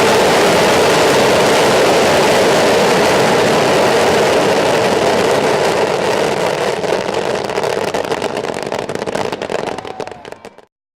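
Massed fireworks rockets launching together: a continuous rushing roar that breaks up over the last few seconds into separate crackles and pops, then cuts off near the end.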